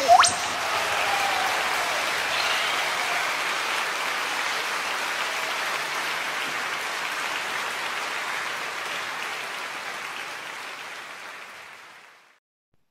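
Applause, opening with a brief rising whistle, then a steady clapping that fades away and stops about twelve seconds in.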